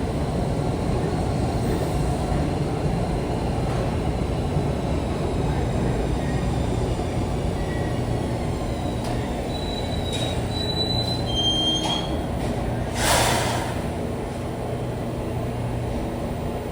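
New York City subway train running with a steady low rumble. Its wheels squeal in brief high tones about ten seconds in, and a short loud hiss follows a couple of seconds later.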